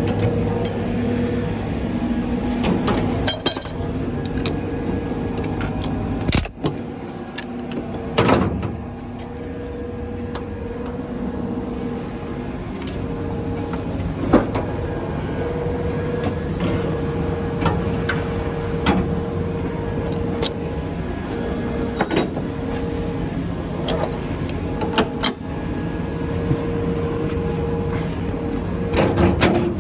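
A vehicle engine running steadily, with scattered metal clanks and bangs from scrap being handled, the loudest about eight seconds in.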